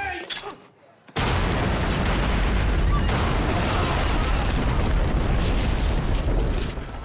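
Explosion of a photo studio (film sound effect): after a brief hush, a loud blast hits about a second in, then rumbles on steadily for about five seconds and eases off near the end.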